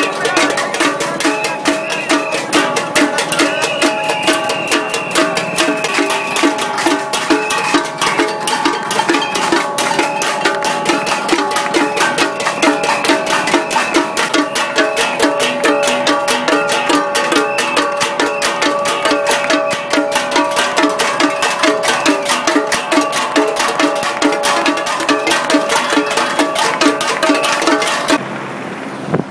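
A crowd banging metal pots and pan lids together: a dense, fast clatter of strikes with a ringing metallic tone. It cuts off abruptly near the end.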